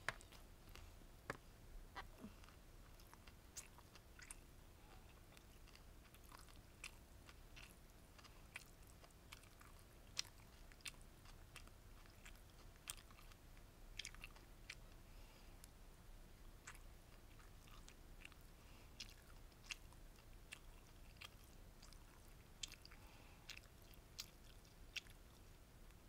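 Close-up chewing of beef bulgogi gimbap, with its rice, seaweed and crunchy vegetables: quiet, with frequent short crisp clicks and crunches at irregular intervals.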